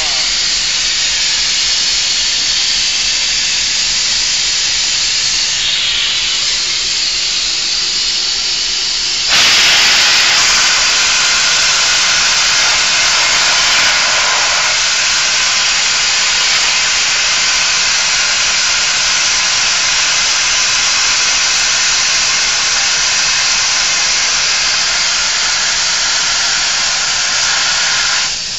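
A loud, steady hiss with no pitch to it. It steps up louder about nine seconds in and cuts off just before the end.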